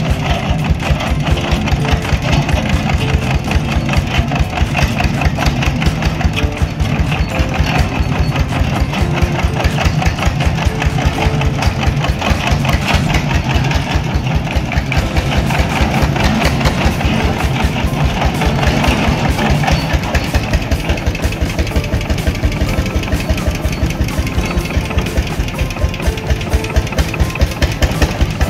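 Vintage tractor engine idling with a slow, even beat of about three pulses a second.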